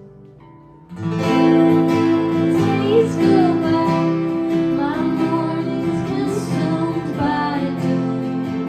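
Acoustic guitar strumming live, soft for the first second, then coming in much louder about a second in, with a woman singing over the chords.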